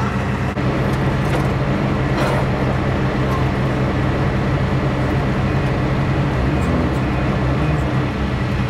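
Semi-truck diesel engine idling steadily, with a light knock about half a second in.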